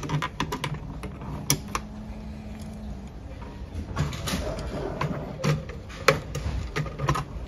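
Small flathead screwdriver turning out the screws on the plastic face of a TSI Pressura room pressure monitor: scattered small clicks, scrapes and creaks of the metal tip on the screw heads and the plastic housing.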